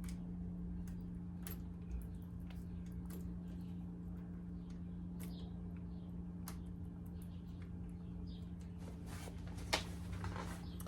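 Faint, scattered light clicks and taps of small hand tools, screws and wire terminals being handled while wiring a motorcycle ignition switch, with one sharper click near the end. A steady low hum runs underneath.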